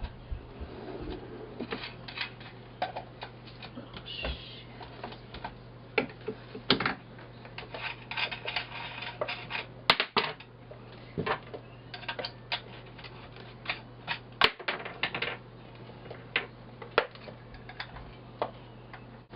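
Irregular clicks and short rattles of small hard plastic pieces being handled, typical of a bicycle tyre patch kit and its plastic tyre levers being taken out and sorted, over a steady low hum.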